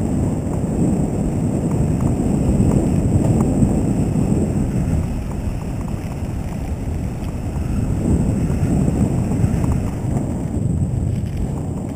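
Wind buffeting the microphone over the steady rumble of mountain bike tyres rolling on a dirt trail at speed, with a few faint ticks and rattles from the bike.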